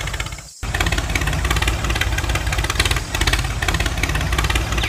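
Tractor engine sound running steadily, with a brief dropout about half a second in.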